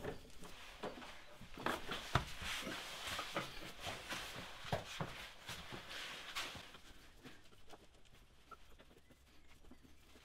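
Irregular light clicks, knocks and scraping from hands fitting a threaded sleeve-type bush removal tool onto a car's rear axle bush. The handling is busiest in the first six or seven seconds, then thins out to a few faint taps.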